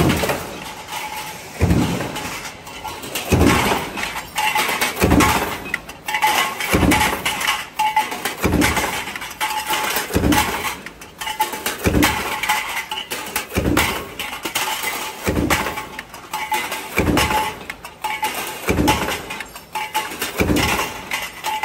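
Mechanical stamping press running a progressive die that forms steel junction boxes, cycling steadily with one heavy stroke about every 1.7 seconds. Formed metal boxes clink and clatter between strokes.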